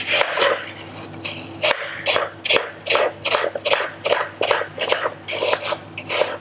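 Small kitchen knife slicing a peeled apple into thin slices on a cutting board: a quick, even run of crisp cuts, each ending in a knock of the blade on the board, about three a second after a couple of longer cuts at the start.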